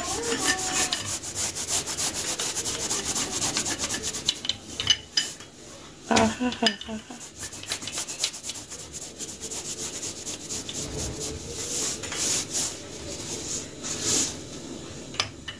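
Paratha dough being pressed and rubbed by hand on a flour-dusted counter, giving a dry rubbing and scraping in fast strokes that ease off for a moment about halfway through.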